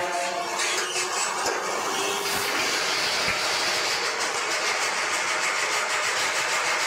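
Steady mechanical rattle and hiss of factory machinery, with a faint regular clatter.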